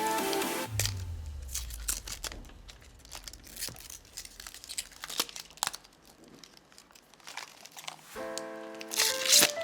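Crinkling and rustling of packaging, with scattered small clicks, as a boxed macropad is unpacked. Background music breaks off about a second in and comes back near the end, with a loud rustle just before the end.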